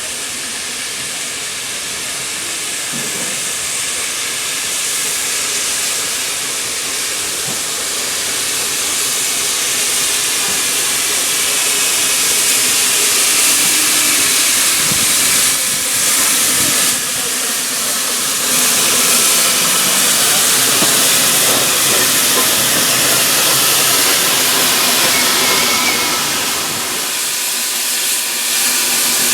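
Steam hissing steadily and loudly from the South African Garratt locomotive NG.087, growing louder over the first dozen seconds.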